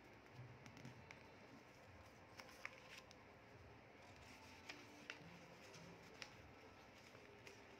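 Faint sounds of origami paper being folded and creased by hand: soft rustles with a few small sharp clicks scattered through the middle, over a quiet room hiss.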